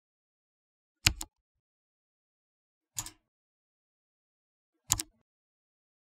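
Mechanical keyboard keystrokes: three separate key clicks about two seconds apart, each a quick double click.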